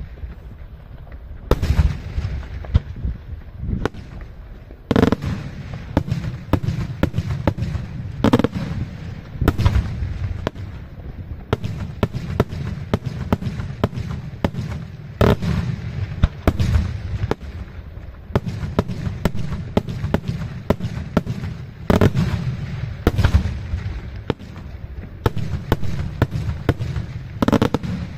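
Daytime fireworks shells bursting overhead: a rapid, irregular series of bangs and cracks, with a heavier boom every few seconds.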